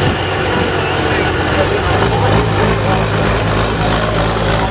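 Large diesel farm tractor engine idling steadily.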